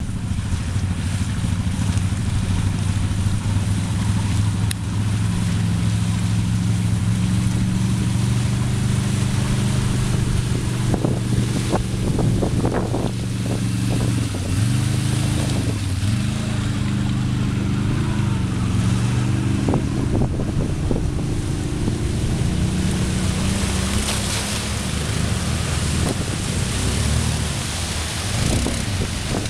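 ATV (quad bike) engines running as the quads ford a shallow river, the engine pitch dipping and rising about halfway through as the throttle is worked. Water splashes and rushes around the wheels, loudest near the end as a quad ploughs through close by.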